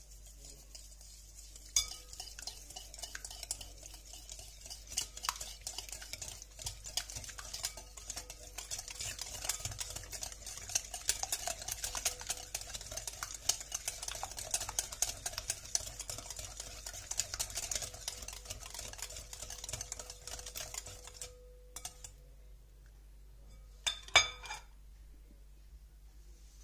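A wire whisk beating egg and sugar in a glass bowl: fast, dense clicking and scraping of metal against glass for about twenty seconds, then it stops. A few seconds later comes a short cluster of sharp clinks, the loudest sound here.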